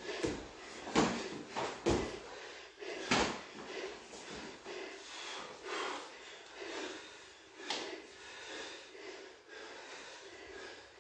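Karate sparring contact: arms and hands striking and blocking, several sharp slaps and thuds, most of them in the first three seconds and one more near eight seconds, with breathing between.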